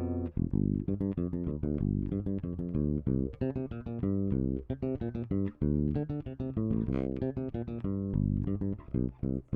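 Alien Audio Constellation four-string electric bass played through its back (bridge) pickup alone, recorded direct with no processing: a quick, busy line of plucked notes, several a second, with a punchy, meaty low end.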